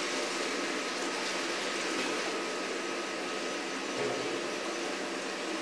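Steady whirring machine noise of a CNC wire-cut EDM machine running, with a faint, thin high tone held throughout.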